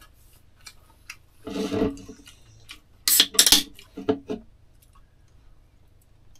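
Table and eating noises: a short crunchy rustle about a second and a half in, then a quick cluster of sharp clicks and knocks about three seconds in, and a few more just after, as a beer can and the fork are handled on the table.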